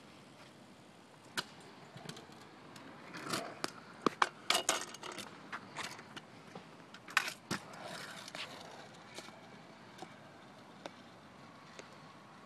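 Kick scooter clattering on concrete: a run of sharp clacks and knocks over a light rolling noise, busiest about three to five seconds in and again around seven seconds, then dying away.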